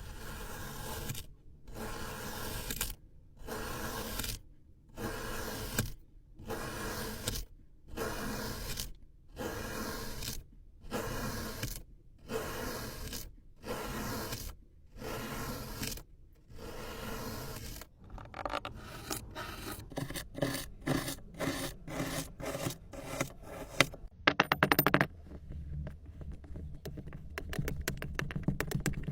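Kinetic sand being cut in slow, even scraping strokes, each lasting just over a second, about one every second and a half. About eighteen seconds in, the cuts change to quick short strokes, several a second.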